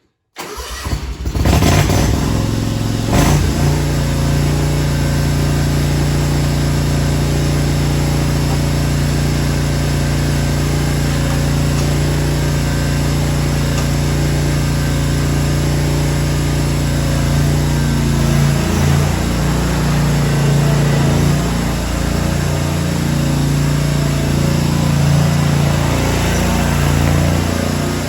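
Two-cylinder Kawasaki FR691V engine of a Hustler Raptor SDX 54 zero-turn mower cranking briefly and catching within about a second and a half, then running steadily at a constant speed.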